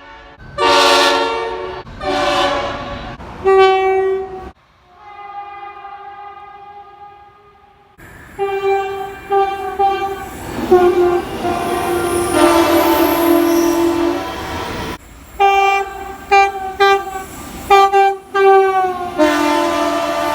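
Locomotive air horns sounding chords of several notes, in a run of short and long blasts. Separate clips are cut one after another: loud horn blasts at the start, a fainter one held steady in the middle, then a long sequence of short toots and longer blasts.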